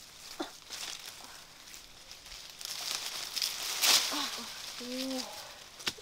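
Leafy guava branches rustling and crackling as they are handled and pulled, with a louder rustle about four seconds in. A brief voice sound comes near the end.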